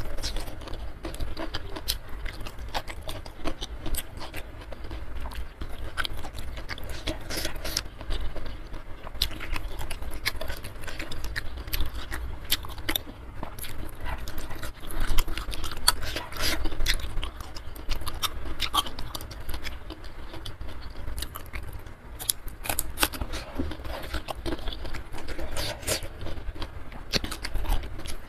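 Close-miked eating: continuous chewing with wet mouth clicks and lip smacks in a rapid, irregular run.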